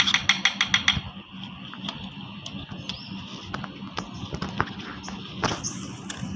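A kitten clawing and tugging at nylon umbrella fabric, with scattered light scratches and rustles. A quick run of about eight sharp ticks in the first second, and a brief louder rustle about five and a half seconds in, over a steady low hum.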